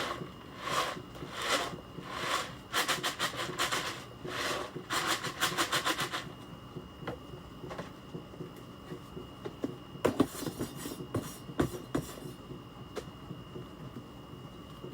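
Rhythmic rubbing strokes, about one every 0.7 seconds, breaking into two quick runs of strokes before stopping about six seconds in. Scattered faint knocks and rustles follow over a thin, steady high whine.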